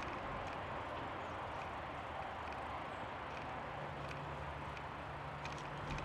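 Steady riding noise from a touring bicycle rolling along a paved trail, with faint scattered ticks. A low steady hum comes in about two thirds of the way through.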